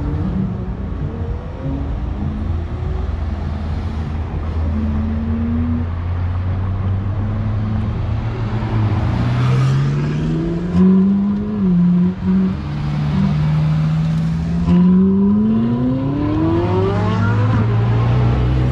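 Car engines pulling away, with notes rising and dropping through gear changes around the middle. Near the end comes a long rising rev as a red Ferrari Testarossa-family car with a flat-12 engine accelerates close by.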